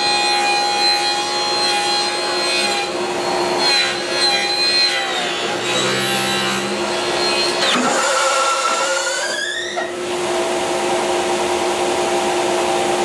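Table saw running with its blade cutting into a large wooden slab turned on a pivot jig. A little past the middle the blade bites in and jams, and its pitch then rises over about two seconds as the saw comes back up to speed and runs on freely.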